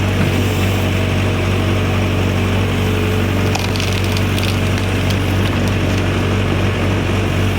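Backhoe's diesel engine running steadily, with a few brief rattles about halfway through.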